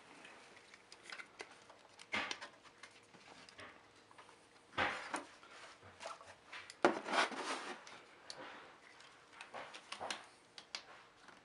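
Plastic laptop case being pried open by hand: scattered clicks and scrapes as the shell's clips come apart, the loudest clusters about five and seven seconds in.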